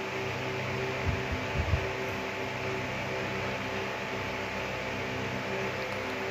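Steady background hum with a hiss, like a fan or an electrical appliance running. A few soft low knocks come between about one and two seconds in.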